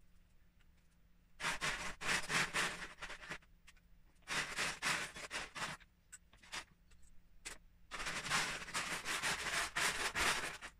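Loose Lego bricks clattering and rattling as a hand rummages through a plastic storage tub full of pieces. The rummaging comes in three spells with short quiet gaps between them, and the last spell is the longest.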